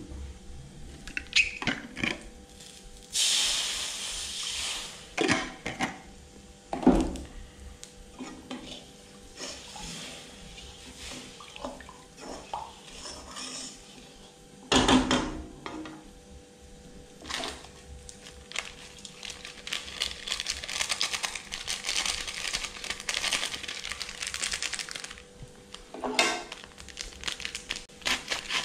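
Cooking in a kitchen: metal utensils and cookware clinking and knocking against pots and pans, many separate strikes, with two longer stretches of hiss, a short one a few seconds in and a longer one past the middle. A faint steady hum runs underneath.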